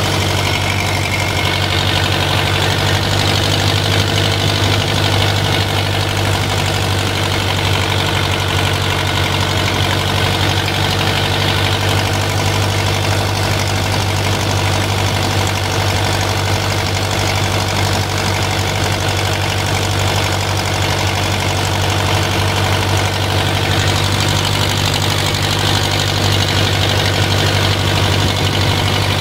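Fishing boat's engine idling steadily, a constant low hum.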